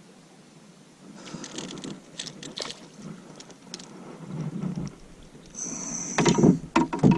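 Fishing gear being handled in a kayak or canoe: scattered clicks and rustling, then a brief high whir followed by several loud knocks against the hull near the end.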